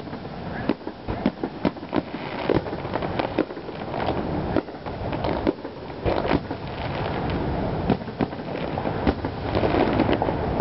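Aerial fireworks shells bursting overhead: many sharp bangs at irregular intervals, several close together at times.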